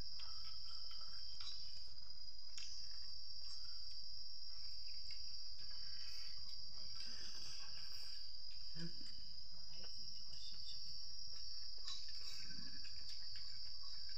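A steady, high-pitched insect chorus, like crickets, runs without a break. Faint small clicks and rustles of food being eaten by hand sound over it.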